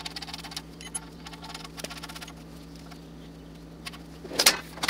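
Light metallic clicking and rattling as steel bolts are handled and threaded by hand into the welded captive nuts of a bar-stock bearing-cap puller, with a louder metal clatter about four and a half seconds in.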